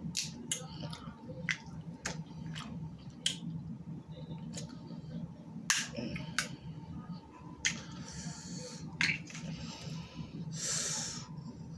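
Close-up eating of snow crab legs: irregular sharp cracks and clicks from the shells being broken and picked, with a longer hissing sound near the end.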